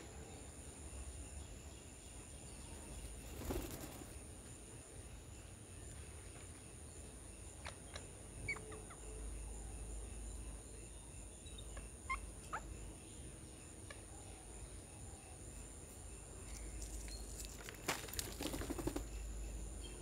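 Faint garden ambience: a steady high-pitched hum, a few short high chirps about halfway through, and brief bursts of quick taps and rustles a few seconds in and again near the end.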